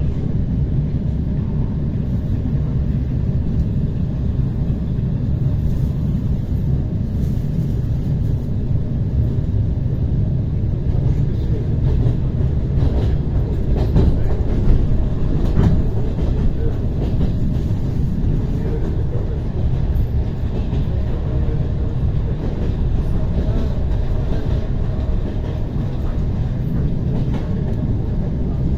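ER9T electric multiple unit running along the line, heard from inside a carriage: a steady low rumble of wheels on rails, with a few sharp clicks about halfway through.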